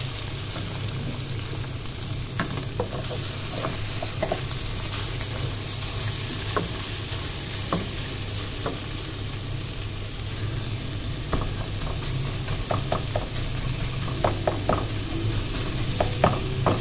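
Guar beans (cluster beans) sizzling in hot oil and garlic in an aluminium pot while a wooden spoon stirs them. Scattered knocks and scrapes of the spoon against the pot, more frequent near the end.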